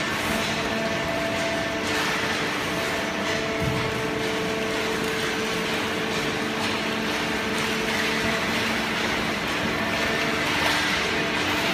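Automatic horizontal hydraulic baler line running: the baler's hydraulic power unit and its inclined feed conveyor make a steady machine drone with several held whining tones over a continuous rush of noise.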